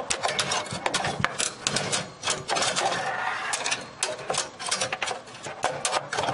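Rapid irregular clicks, knocks and scraping of a PCI expansion card being pushed and worked into a motherboard slot inside a computer case.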